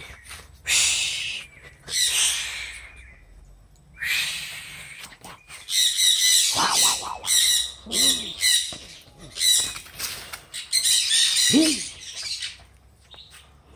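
Birds calling in loud, harsh squawks: two near the start, then a rapid run of repeated calls through the second half.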